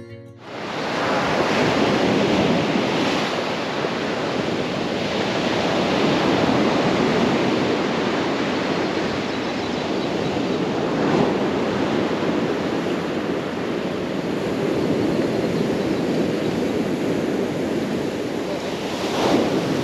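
Surf washing onto a sand beach: a steady rush of breaking waves with a few louder swells, beginning about half a second in as the music cuts out.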